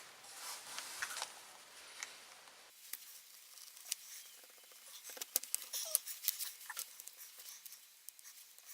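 Opening tool scraping along the seam of a tablet's back cover, with scattered small clicks and snaps from about three seconds in as it works the cover loose.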